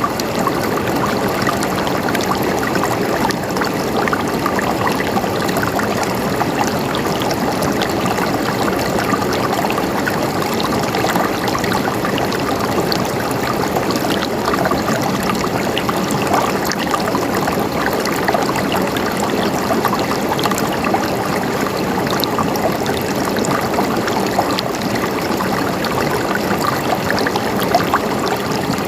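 Running water, a steady gurgling and trickling with many small splashes throughout.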